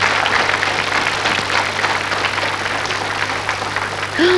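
Studio audience applauding, a dense patter of many hands, over a steady low hum.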